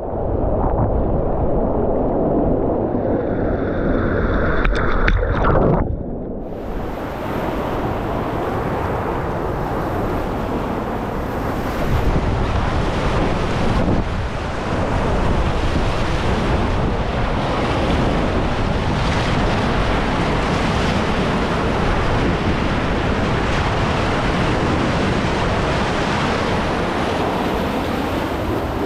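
A river in major flood pours over a low-head dam, with turbulent white water churning right at the microphone in a steady, loud rush. For about the first six seconds it is muffled and dull, then it opens into a full, bright hiss.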